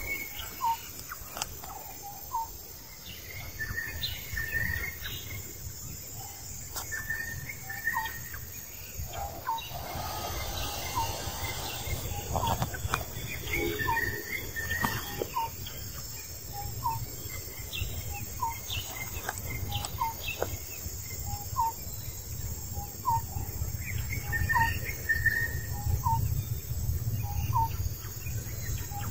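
Outdoor forest ambience: birds calling, one repeating a short note about every second and a half, with other chattering calls, over a steady high insect drone and a low rumble.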